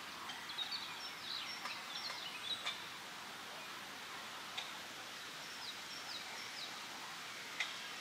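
Songbird singing a rapid run of descending whistled notes in the first few seconds, then three short descending notes a little past halfway, with a couple of sharp clicks. Underneath is a steady hiss of wind in the leaves.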